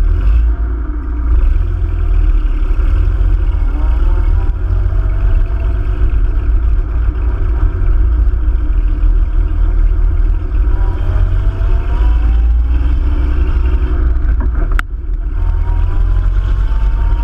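Hispano-Suiza J12's V12 engine running as the car drives, with a deep low rumble. Its pitch climbs as it accelerates several times, and there is an abrupt break about 15 seconds in.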